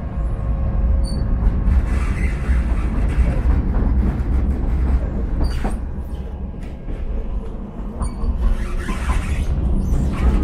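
Sheffield Supertram tram running along the line, heard from inside the passenger car: a steady low rumble of wheels on rail, with a few clicks and rattles.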